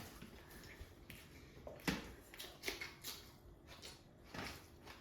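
Faint eating sounds from a rice-and-egg-curry meal: a few soft clicks and knocks, spaced about a second apart, over quiet room tone.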